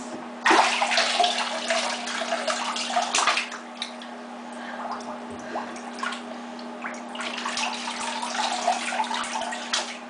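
Bathwater splashing and sloshing in a tub as a toy boat is pushed through it by hand. It comes in bursts, loudest about half a second in and again around three seconds, with a steady low hum underneath.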